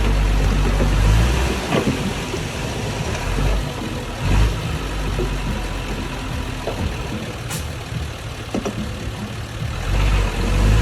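Diesel engine of a mini bulldozer running under varying load, heavier at the start and again near the end, with a few sharp clicks.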